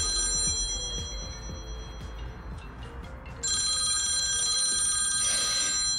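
Music with a set of high, steady, bell-like ringing tones. The tones fade out about half a second in and come back sharply about three and a half seconds in, over faint knocks.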